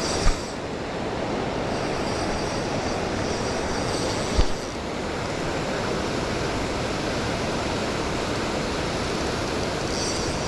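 Waterfall rushing steadily. Two sharp knocks cut through it, one just after the start and one a little before the middle.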